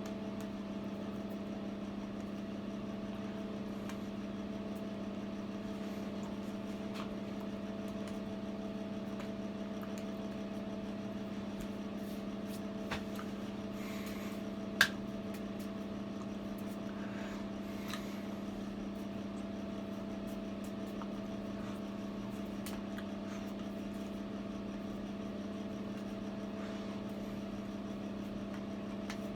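A steady, even machine hum, with a faint tap about 13 seconds in and one sharp click about 15 seconds in.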